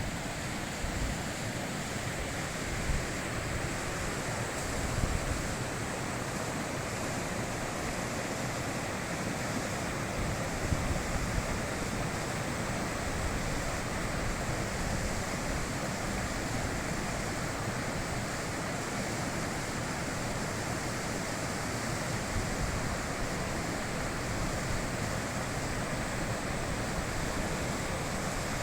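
High-mountain river flowing: a steady, unbroken rush of water.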